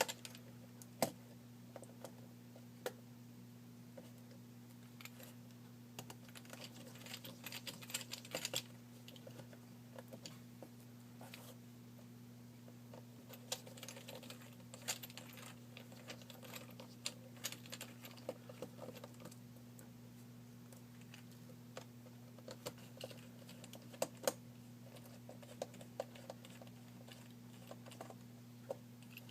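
Scattered light clicks and taps of a small T5 screwdriver and plastic phone parts as screws are removed from a BlackBerry Bold 9700, with clusters of quick clicks. A steady low electrical hum runs underneath.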